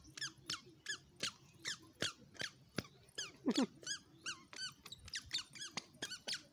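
Squeaker shoes on a toddler's feet, chirping once with each small step as she walks, about three to four short high squeaks a second.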